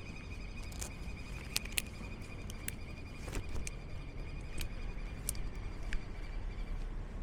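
City street ambience: a steady low traffic rumble, a steady high whine that stops near the end, and scattered sharp ticks.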